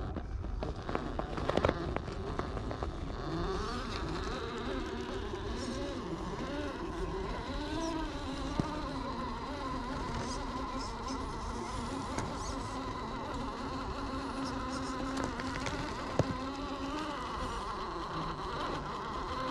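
Electric drivetrain of an Axial SCX10 III Jeep JLU RC crawler (Holmes Hobbies Crawlmaster Sport 540 brushed motor driving through steel pinion gears) whining as it crawls up a rock ledge. The whine rises and falls in pitch with the throttle, and a few sharp knocks come from the tyres and chassis on the rock.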